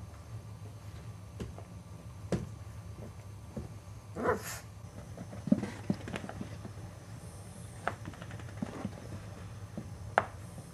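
Six-week-old Boxer puppies playing: one short puppy vocalization about four seconds in, amid scattered light knocks and scuffles, over a low steady hum.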